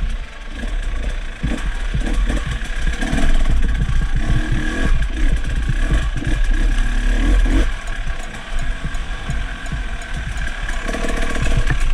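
Enduro dirt bike engine running on an off-road trail, with heavy low rumble and irregular low thumps mixed in.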